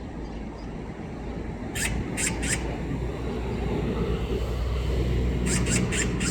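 Magpie giving harsh, rasping chatter calls, three in quick succession about two seconds in and a faster run near the end, over a steady low rumble.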